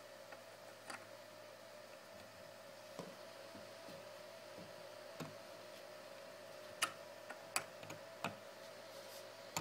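Scattered faint clicks and taps, sharper ones coming in a cluster near the end, as a knob is handled and fitted onto a 3D printer's Z-axis adjustment. A steady faint hum runs underneath.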